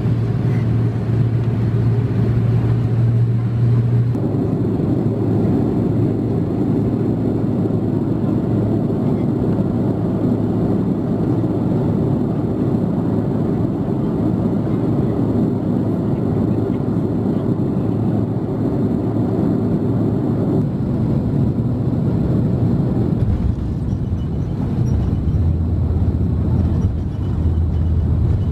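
Steady rumble of engines and airflow in the cabin of an Airbus A330-300 on approach. The tone shifts about four seconds in and again about twenty seconds in.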